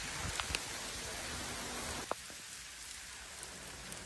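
Small hailstones falling and pattering steadily on paving, with scattered sharp ticks of individual stones striking; slightly quieter about two seconds in.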